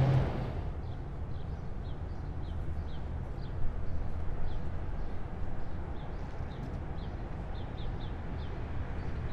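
Low, steady rumble of heavy military vehicle engines idling or moving slowly. A louder vehicle fades away at the very start. A small bird chirps over the rumble in short, quick notes, a couple a second.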